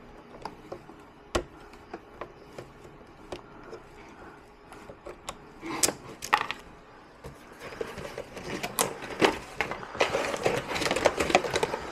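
A knife cutting the packaging that holds an RC truck in its cardboard tray, with scattered small clicks and snips. From about six seconds in come louder scrapes and rustling of cardboard as the truck is worked loose and lifted out.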